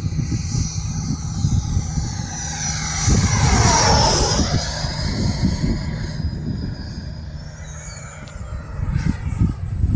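Electric ducted-fan whine of a Freewing Avanti V2 RC jet making a pass, loudest about four seconds in and dropping in pitch as it goes by. Gusty wind buffets the microphone throughout.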